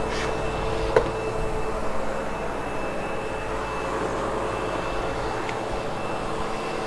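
Sebo X8 upright vacuum cleaner running steadily on carpet: a constant motor-and-airflow noise with a few held tones, and one short click about a second in.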